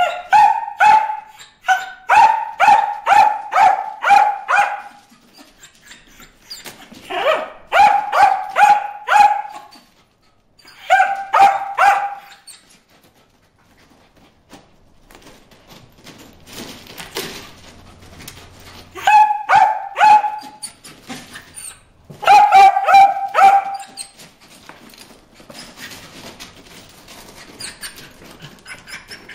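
Dog barking at fish in a water-tub pond, in five runs of quick barks, about three to four a second, with short pauses between the runs.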